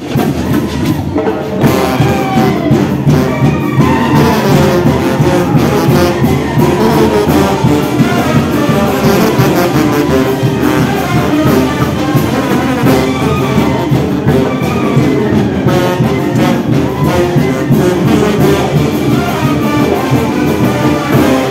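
Brass band of sousaphones, trumpets and trombones playing a lively tune together at full volume.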